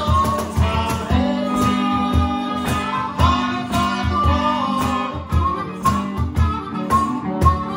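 Live blues band: a semi-hollow electric guitar, a harmonica and a seated player's box drum (cajón) keeping a steady beat, with a man singing.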